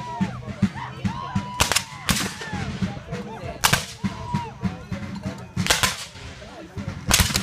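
Scattered gunfire from reenactors' black-powder muskets firing blanks: about six sharp shots at uneven intervals, two of them close together, with a short echo after each.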